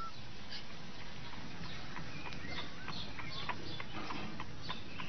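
A cat inside a puzzle box: the tail of a meow at the very start, then a run of light, irregular clicks and taps, about two or three a second, as it works at the box to get out.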